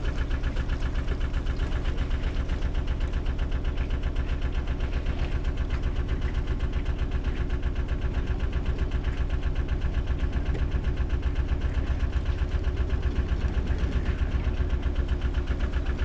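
A narrowboat's diesel engine running at a steady low speed, with an even thudding beat of about five to six pulses a second.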